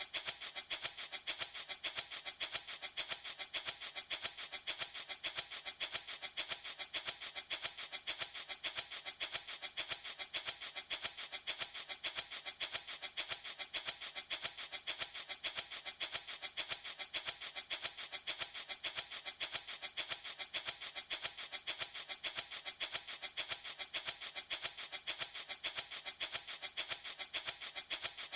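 Handmade wooden baby rattle shaken steadily in a fast, even rhythm, each shake a bright, crisp rattle of its loose pieces.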